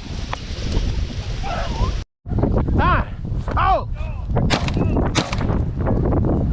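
Strong wind buffeting the microphone. After a brief cut about two seconds in, rabbit hounds bay with a few rising-and-falling cries, and a couple of sharp cracks follow in the middle.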